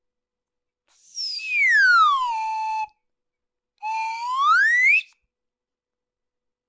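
Two cartoon whistle sound effects: a falling whistle about a second in that slides down and levels off, then a rising whistle about four seconds in that slides up.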